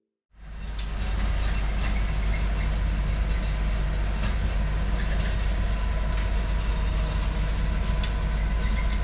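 Rototiller's small gas engine running steadily, loud, with a low rumble and rattle. It cuts in abruptly just after the start.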